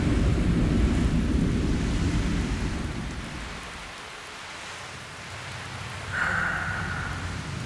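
Thunderstorm sound effects: a long roll of thunder over steady rain, the rumble dying away over about four seconds. About six seconds in, a brief high steady tone sounds over the rain as low rumbling returns.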